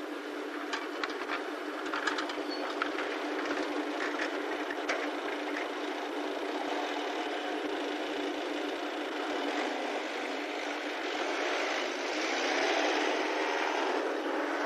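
Steady engine drone from road and rail traffic, with a few light clicks in the first few seconds. A vehicle grows louder from about twelve seconds in as it approaches.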